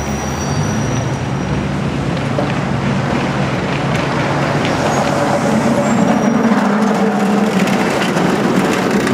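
San Francisco cable car approaching and rolling close past on its rails, over a steady din of street traffic; the noise grows a little louder as it nears.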